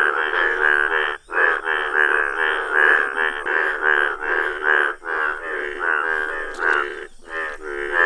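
Male Indian bullfrogs (Hoplobatrachus tigerinus) giving their breeding calls as a chorus, with the paired vocal sacs puffing out on each call. The croaks come in rapid runs of about four a second and overlap one another, with brief breaks about a second in and near the end.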